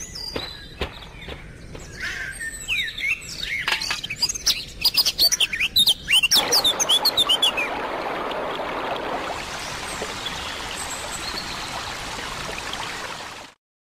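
Birds chirping in many short rising and falling calls over a run of sharp clicks, then from about six seconds in a steady rush of water running from a tap, which cuts off abruptly near the end.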